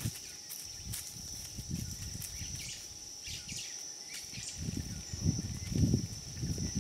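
Baby black rhino moving and snuffling in sawdust: low, muffled bursts that come thicker and louder near the end, over a steady high insect drone.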